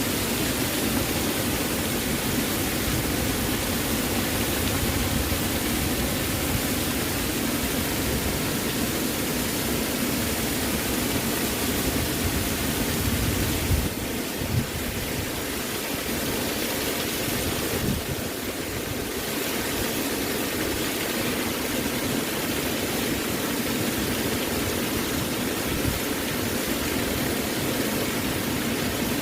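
Waterfall rushing: a steady, full wash of water noise with a slight shift in level about halfway through.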